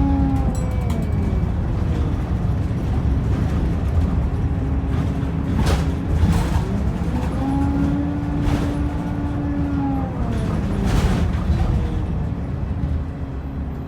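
Optare Versa single-deck bus heard from on board while driving: engine and road noise with a whining tone that bends down and up in pitch and holds steady for a couple of seconds in the middle. A few sharp knocks or rattles come through as it goes.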